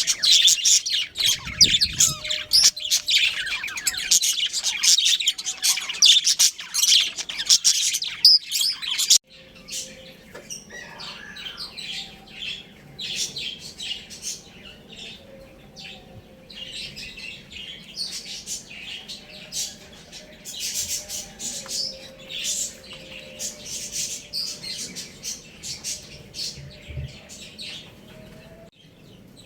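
Many small birds chirping in dense, rapid, high-pitched chatter. About nine seconds in it cuts off abruptly to quieter, sparser chirping.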